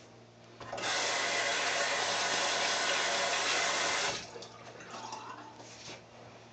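Bathroom sink tap running for about three and a half seconds, starting suddenly about a second in and then shut off, followed by a few faint splashes and handling sounds.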